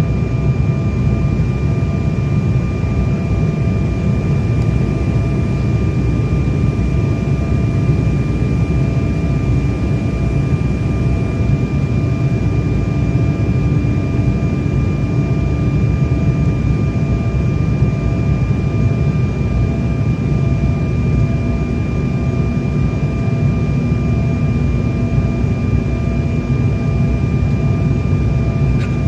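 Airliner cabin noise during descent: a steady, loud rumble of jet engines and rushing air, with a thin, steady high whine over it.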